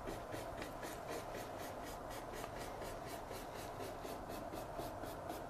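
Paintbrush bristles stroking oil paint on canvas in quick, even, repeated downward strokes, about four a second.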